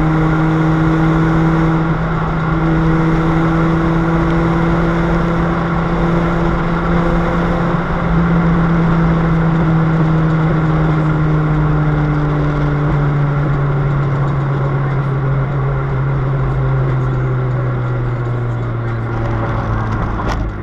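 Toyota Vios four-cylinder engine droning loudly through a broken exhaust pipe, like a rally car, while the car drives along; the pitch slowly falls as the car eases off.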